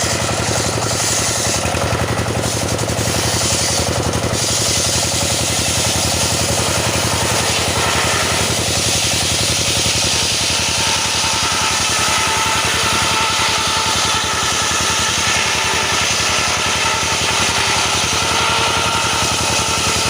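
Petrol-engine saw running steadily while sawing teak, its note shifting at about eight seconds in.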